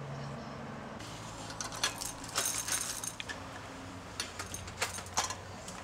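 Paper bag crinkling and rustling in short bursts as it is opened and handled over a metal bowl, with small clicks and clinks.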